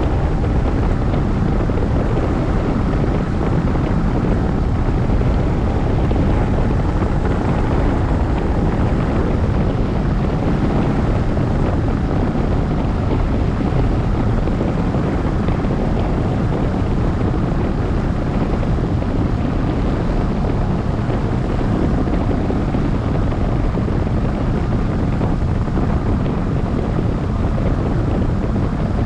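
Loud, steady wind rushing over the microphone of a tandem hang glider under aerotow, with a faint steady hum underneath.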